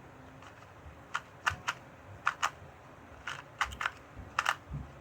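Clicking of a carbon-fiber 2x2 puzzle cube's layers being turned by hand during a solve: a dozen or so short, sharp clicks in irregular quick runs, starting about a second in.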